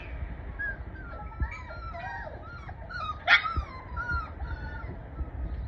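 A litter of 39-day-old boar-hunting dog puppies whining and whimpering, many short high cries overlapping, with one louder yelp a little over three seconds in.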